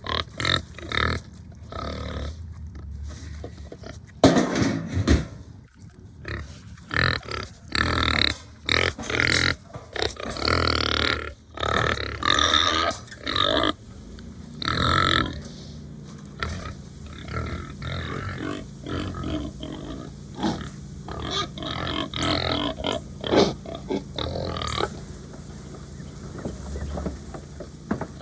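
Hungry Duroc pigs grunting and calling in a dense run of loud, irregular calls. About halfway through the calls thin out to shorter, quieter grunts, which die down near the end.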